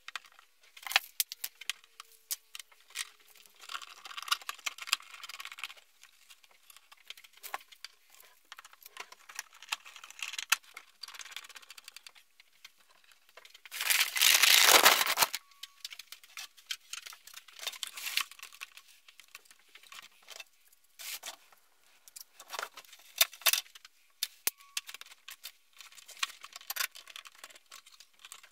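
Bar clamps being handled and screwed down: scattered clicks, rattles and knocks of the metal clamp hardware. About halfway through there is a loud rustle lasting about a second and a half as a sweater sleeve brushes over the microphone.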